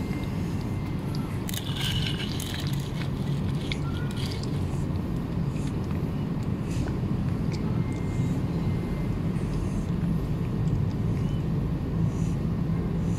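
A domestic cat chewing and lapping soft wet cat food from a plastic tray: small scattered wet clicks and smacks. Under it runs a steady low hum, which is the louder sound.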